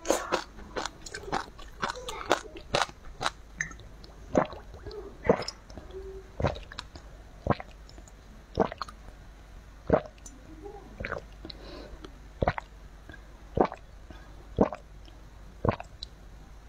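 Close-miked mouth sounds: chewing of sea grapes with quick wet clicks for the first few seconds, then drinking from a bottle, with one sharp gulp about every second as the drink is swallowed.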